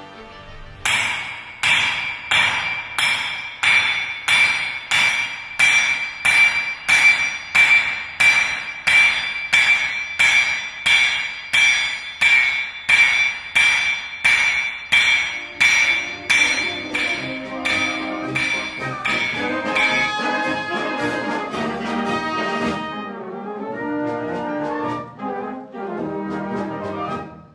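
Hammer blows on a ringing anvil, about two a second, over brass music. The blows stop at about 20 s, leaving the brass music alone.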